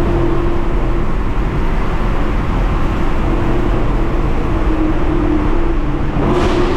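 Chevrolet Camaro SS 1LE's 6.2-litre LT1 V8 running steadily at constant revs, with road noise. A brief rush of noise comes near the end.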